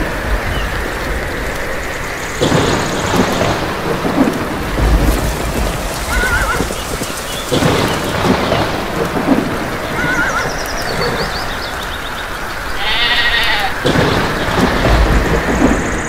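Steady heavy rain with a few low rumbles of thunder, and birds chirping now and then over it.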